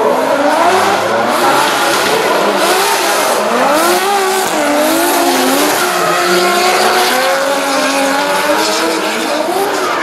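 Two drift cars sliding in tandem, their engines held at high revs that swing up and down, with tyres squealing and hissing as they spin through the slide.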